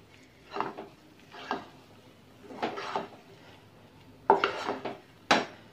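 A spatula scrapes and presses a thick jackfruit and rice-flour dough around a nonstick pot in about five strokes, a second or so apart. The dough is being stirred stiff like ragi mudde until it comes together into one mass.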